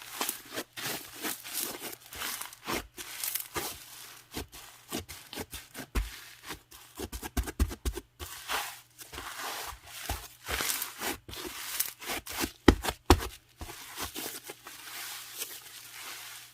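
Hands squishing, folding and pressing a snowflake slime, a crispy slime that gives off dense, irregular crackling and crunching. Louder sharp pops cluster about halfway through and again around two-thirds of the way in.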